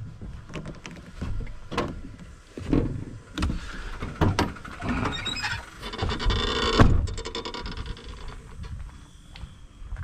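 Irregular knocks, clicks and rustling as someone climbs out of a Scania truck cab, then a loud thump about seven seconds in as the cab door shuts.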